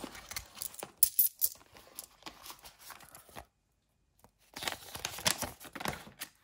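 Cash being taken out of a clear plastic zip pouch in a budget binder: plastic crinkling and euro banknotes rustling, with a few sharp clicks. The sound cuts out completely for about a second in the middle.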